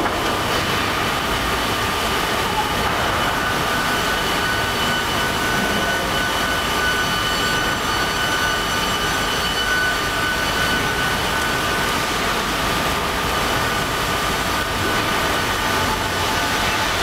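Tandem vertical log bandsaw line running: a steady industrial machine noise with several high, even whines. One whine comes in about three seconds in and fades out around twelve seconds.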